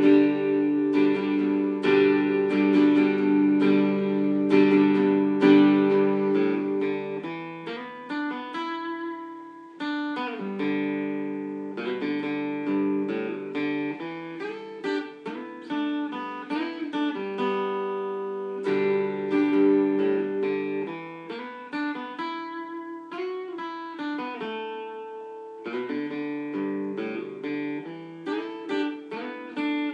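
Solo acoustic guitar with no voice. Strummed chords ring for the first several seconds, then give way to runs of picked single notes, with full chords coming back now and then.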